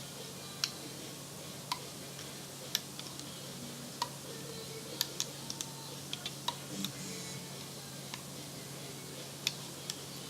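Irregular light clicks and taps of a crochet hook against the plastic pegs of a Rainbow Loom as rubber bands are hooked over, a few of them with a short ring, over a faint steady hum.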